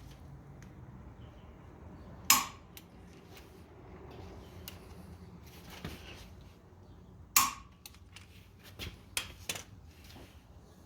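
Click-type torque wrench giving two sharp clicks about five seconds apart, each as a wheel bearing bolt reaches its set torque of about 75 foot-pounds, with a few fainter clicks near the end.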